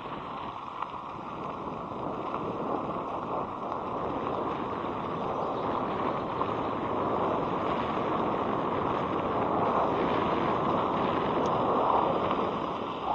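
Wind rushing over a helmet-mounted action camera's microphone while riding an electric scooter, a steady noisy rush that grows louder through the first two-thirds.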